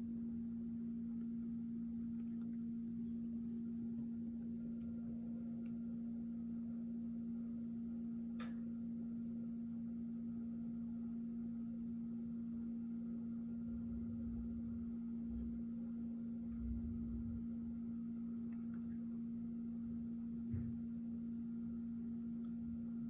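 A steady low electrical hum on one pitch, with a few faint clicks, soft low rumbles about two-thirds of the way through and a small knock near the end.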